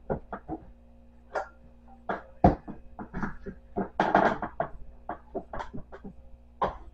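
Dishes and glassware being moved about on wooden kitchen cupboard shelves: a string of irregular knocks and clinks, with one sharp loud knock about two and a half seconds in and a busy patch around four seconds.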